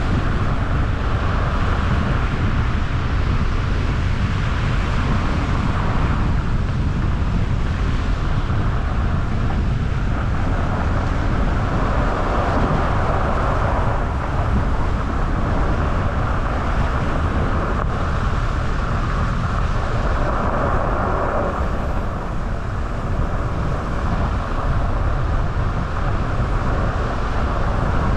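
A car driving at a steady speed: continuous road and tyre noise over a low rumble, with some wind.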